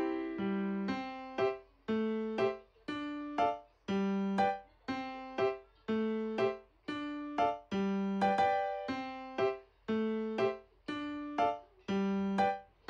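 Background music: a light piano-style keyboard tune, notes and chords struck in an even rhythm of about two a second.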